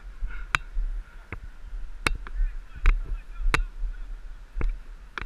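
Sharp clacks of lacrosse sticks and ball, about seven at uneven intervals, over low wind rumble on the microphone.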